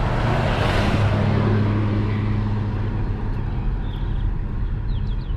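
Car on the move: steady engine hum and road noise, with a louder rush swelling up in the first second.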